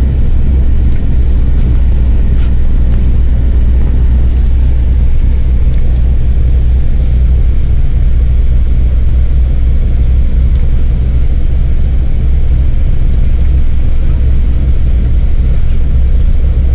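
Steady low rumble of road and engine noise inside a moving vehicle's cabin as it drives along a wet highway.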